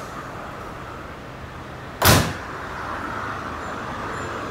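Train standing at a station platform with a steady hum; about two seconds in, a single short, loud thud as the train's doors shut.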